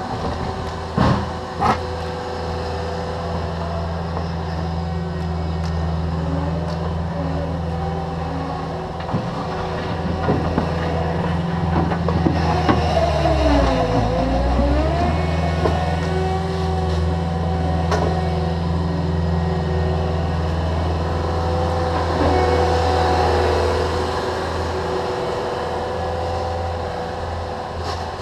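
Diesel engines of a Cat 305.5E2 mini excavator and a Cat 289D compact track loader running steadily. A few sharp knocks come in the first two seconds. About halfway, the engine pitch dips and recovers as the track loader drives its bucket into the dirt pile under load.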